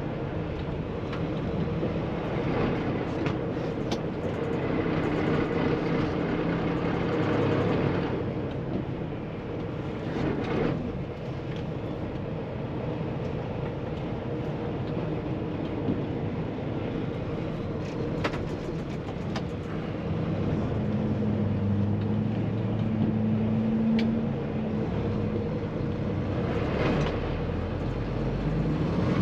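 Cab sound of a 2016 Kenworth T680 semi truck, its PACCAR MX13 diesel engine running steadily under road and tyre noise as it creeps through slow traffic. The engine note changes about two-thirds of the way in.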